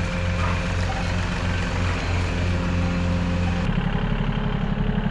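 A milking machine runs with a low hum that swells about twice a second. About three and a half seconds in, this gives way to a small tractor's engine running with a fast, even beat.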